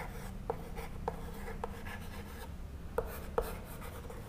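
Chalk writing on a chalkboard: a string of short, irregular taps and scratches as letters are written.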